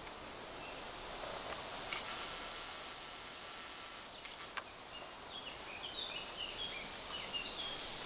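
Woodland ambience: a steady high hiss, with a small bird chirping in a run of short, quick notes in the second half and a single sharp click just past the middle.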